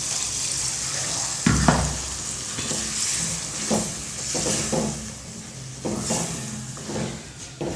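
Ground masala paste sizzling in a hot metal kadai of sautéed mushrooms as it is poured in and stirred with a wooden spatula, with a few knocks and scrapes of the spatula against the pan.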